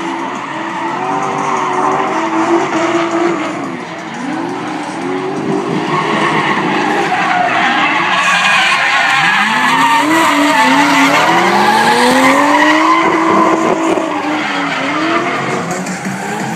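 Two drift cars, a Nissan Skyline and a Nissan Silvia, in a tandem drift: their engines rev up and drop again over and over while the tyres screech. Louder in the second half.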